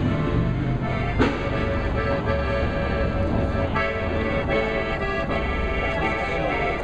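Accordion played close by, sounding held chords and notes that change every second or so. There is one sharp knock about a second in.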